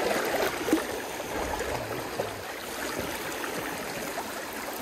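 Shallow stream water rippling and gurgling over a gravel riffle in a steady rush.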